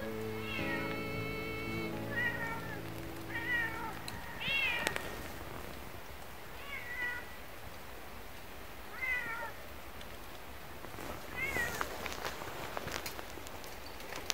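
Domestic cat meowing repeatedly while walking ahead, about seven short calls that rise and fall in pitch, coming every second or so at first and then every two or three seconds. The owner takes the calls as the cat asking to be followed.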